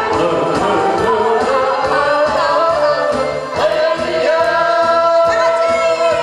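Live singing into microphones over amplified backing music with a steady beat, ending on a long held note over the last two seconds or so.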